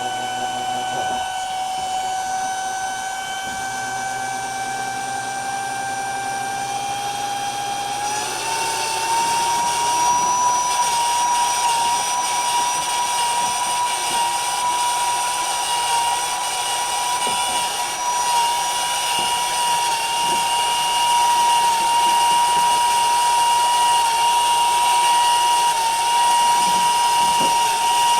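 A small electric water-transfer pump motor running with a steady whine that glides up in pitch about eight seconds in and then holds. It is running but not moving water, because the hose is kinked.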